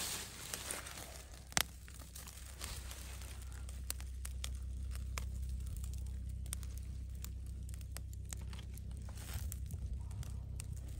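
Wood campfire crackling, with scattered sharp pops, over a low steady rumble.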